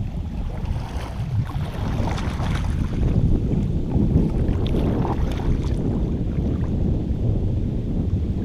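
Wind buffeting the microphone with a steady low rumble, and water splashing and lapping against a kayak, irregular splashes clustering in the first two-thirds.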